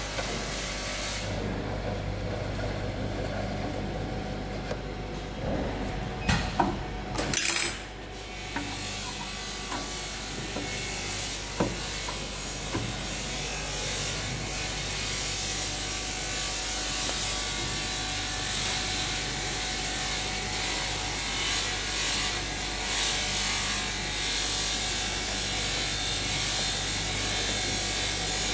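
Metal scraping, rubbing and clinking as the conveyor guide rails and sensor brackets of a bottle-filling machine are loosened and moved with a hex key, over a steady low hum. A few sharp knocks come about six to seven seconds in, and one more near twelve seconds.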